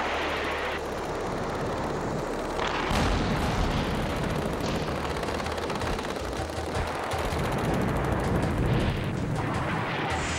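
Battle sounds: gunfire mixed with shell explosions, with a deep rumble setting in about three seconds in.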